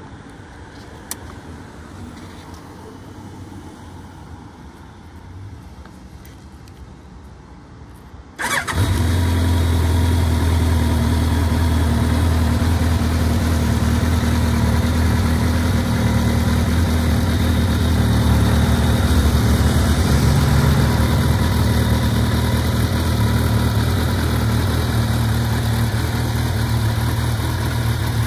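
Kawasaki ZRX1200 DAEG's inline-four engine with an aftermarket PMC megaphone muffler being started. After a single click about a second in, the engine cranks and catches abruptly about eight seconds in, then settles into a steady idle.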